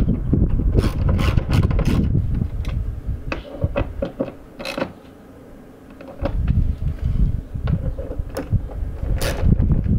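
Hand ratchet clicking in bursts as bracket bolts are tightened, over heavy wind rumble on the microphone. There is a run of rapid clicks in the first couple of seconds, then scattered single clicks and a short lull in the middle.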